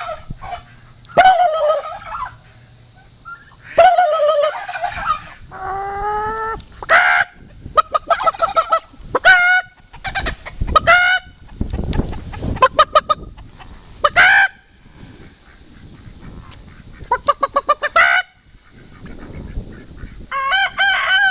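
Turkeys gobbling, answering a man's imitation gobbling calls. It is a long run of loud calls every second or two, several of them with a fast rattle.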